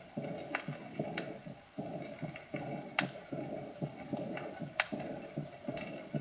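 Recorded stethoscope heart sounds with the early diastolic blowing murmur of aortic insufficiency, mixed with breath sounds in the same frequency range, so that the murmur is easily masked. The beat repeats regularly a little under a second apart.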